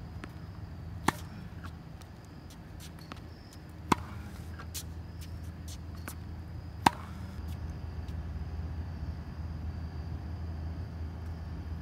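Tennis racket striking a tennis ball: three sharp hits about three seconds apart, with fainter clicks between them, over a steady low hum.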